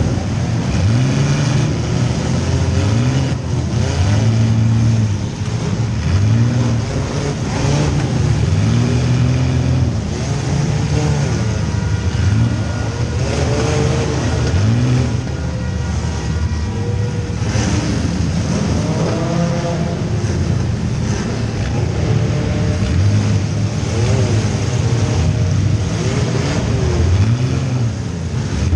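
Compact demolition-derby car's engine revving up and dropping again over and over, heard from inside the cabin, with occasional sharp knocks from hits.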